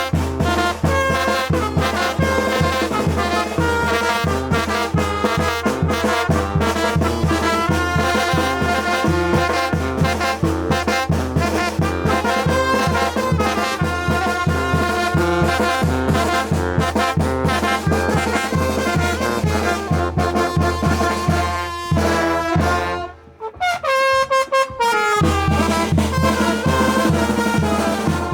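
Mexican brass banda playing a chilena: trumpets and trombones carry the melody over a pulsing low bass. Near the end the band breaks off briefly, then comes back in.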